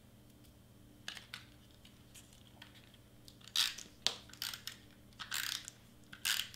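Adhesive tape runner drawn across foam craft pieces on card stock in about five short raspy strokes in the second half, after two light taps of paper pieces being set down about a second in.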